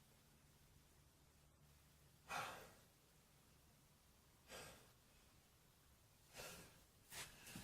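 A man's soft, sighing breaths against near silence: four short breaths with pauses between, the loudest about two seconds in. It is the breathing of someone whose dust allergy is building toward a sneeze.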